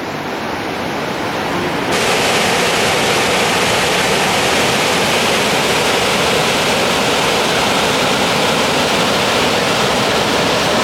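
Waterfall plunging over a cliff, a steady, loud, even rush of falling water that swells fuller about two seconds in and then holds.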